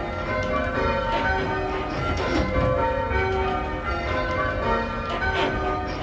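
Church bells rung in call changes, heard from the ringing chamber beneath them: an even, unbroken succession of strikes, one bell after another, each note ringing on into the next.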